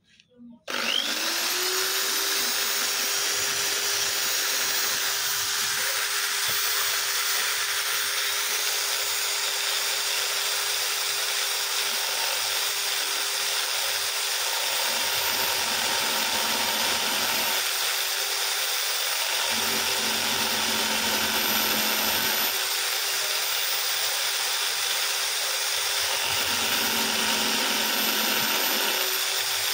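Corded electric drill winding up about a second in and then running at a steady speed, spinning a small abrasive wheel. A motorcycle camshaft is held against the wheel to grind a little off the top of its cam lobe.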